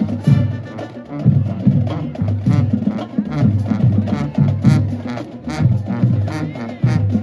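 Marching pep band playing a lively tune: sousaphones carry a repeating bass line under trumpets and saxophones, with drum hits marking a steady beat.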